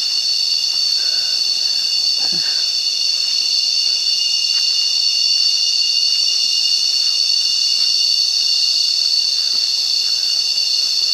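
Cicadas singing in a loud, steady, high-pitched drone.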